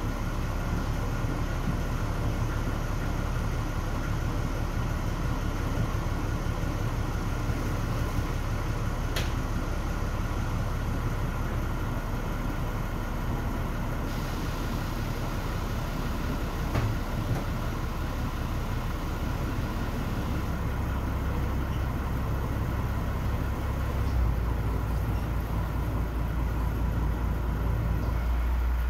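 A boat's engine running steadily as it cruises along a canal, a constant low hum. The engine note shifts lower about twenty seconds in and again about twenty-four seconds in.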